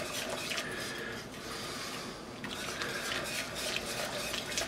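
Wire whisk stirring a thin soup base in an enamelled pot: quick, continuous scraping and clicking of the wires against the pot as the roux is whisked into the liquid.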